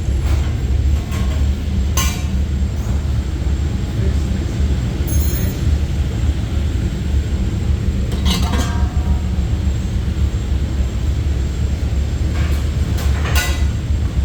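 A churros-making machine at work: a steady low mechanical hum, with metallic clinks about three times.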